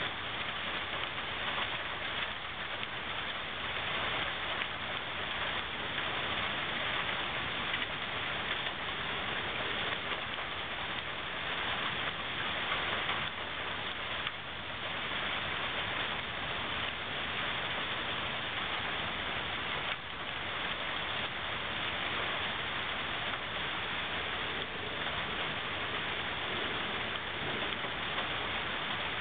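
Heavy rain falling steadily in a thunderstorm, an even hiss throughout.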